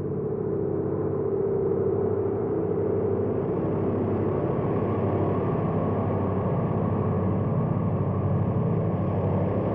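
UFO hovering sound effect: a continuous low drone made of several held tones. It swells over the first couple of seconds, then holds steady while slowly growing brighter.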